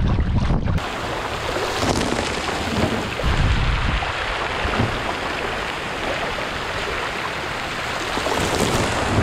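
Water splashing and rushing against a plastic kayak's hull as it moves through choppy water, a steady hiss like rain. Wind buffets the microphone in the first second.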